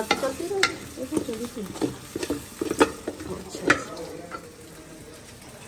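A plastic spoon stirring pasta in a large aluminium pan, scraping and knocking sharply against the metal several times, over the faint sizzle of frying.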